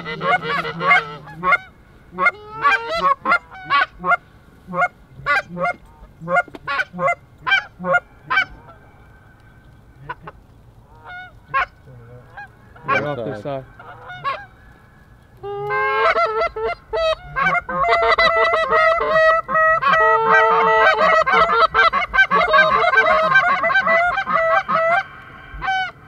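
Geese honking: a string of short honks at first, a lull with only a few, then a long run of dense, overlapping honks and clucks past the middle.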